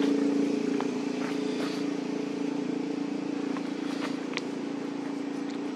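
A steady engine hum, like a motor vehicle running, easing off slightly over the first second or two, with a few faint scattered clicks over it.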